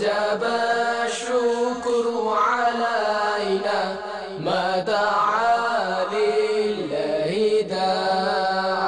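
Islamic devotional singing (a nasheed): a voice holding long melismatic notes that slide between pitches, in phrases with short breaks.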